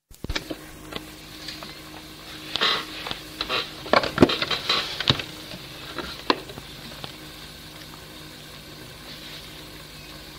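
Lead-in of a home demo recording: steady tape hiss and a low electrical hum, with a flurry of clicks and knocks of handling noise for a few seconds in the middle, before any playing starts.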